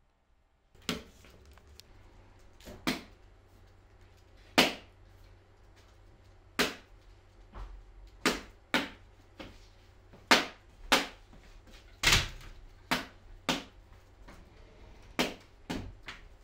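A series of sharp knocks and taps of hard objects, irregularly spaced at roughly one a second and varying in strength, over a low steady hum.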